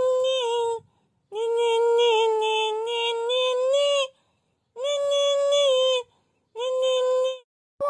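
A high voice singing or humming a wordless tune in four held phrases, each broken off by a short gap, with the longest phrase in the middle.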